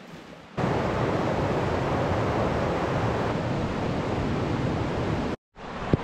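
Steady rush of fast-flowing river water, starting abruptly about half a second in and cutting out briefly near the end.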